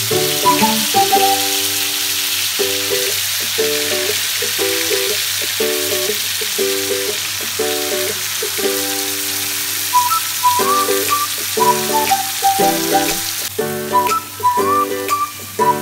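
Mutton chops sizzling as they fry in oil in a nonstick wok, a steady hiss that drops off sharply near the end, under background music.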